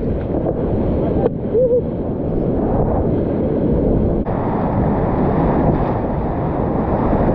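Whitewater rapids churning around a kayak: a loud, steady, low rush of crashing water, with spray splashing over the bow.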